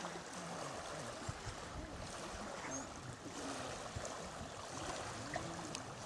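Steady outdoor lakeshore ambience: an even rushing noise of wind and water with no distinct events.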